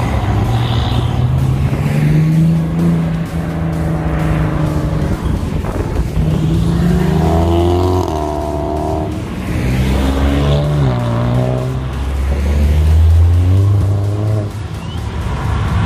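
Car engines revving and accelerating, rising and falling in pitch as cars drive past, with background music.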